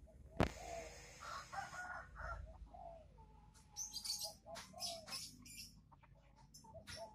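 Ayam Cemani chickens clucking in short calls, with a single sharp knock about half a second in and scattered rustling in the second half.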